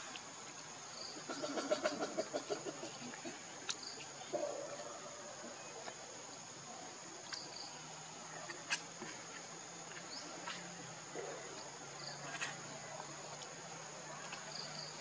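Insect chorus: a steady high-pitched drone. A short run of rapid low pulses comes about two seconds in, and a few scattered clicks follow.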